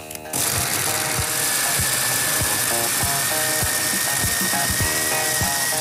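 Moulinex Moulinette electric mini chopper running, its blades grinding a wet marinade of coriander seeds, garlic and parsley into a purée. The motor starts just after the opening and runs steadily with a high whine until it cuts off near the end.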